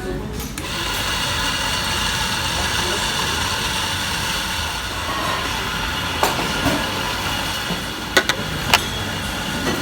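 Steady running noise of a vehicle, with a few sharp clicks in the second half.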